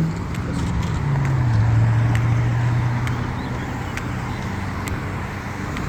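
Road traffic at an intersection: a nearby vehicle's engine hums steadily and drops in pitch about a second and a half in, over tyre and road noise. Faint short ticks recur about once a second, typical of a crosswalk push button's locator tone.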